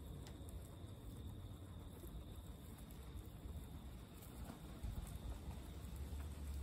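Guinea pigs munching fresh grass and straw: faint scattered chewing and rustling clicks over a low rumble that grows louder near the end.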